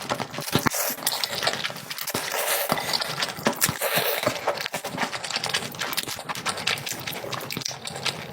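Close-miked wet chewing and lip-smacking of a person eating, a dense run of moist clicks and smacks with no pauses.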